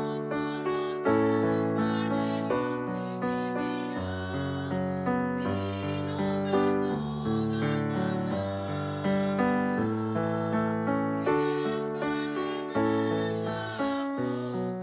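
Piano playing a slow piece, each note or chord struck and then fading away.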